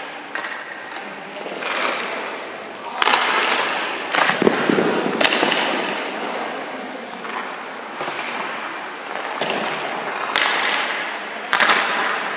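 Hockey skate blades scraping and carving across ice in repeated hissing bursts, with a few sharp knocks of puck and stick.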